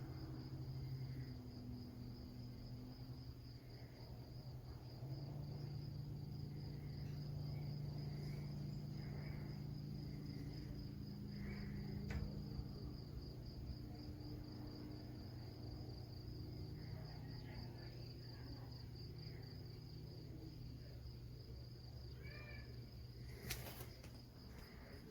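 Crickets trilling steadily, with a low hum underneath that shifts in pitch now and then. There is a sharp click near the end.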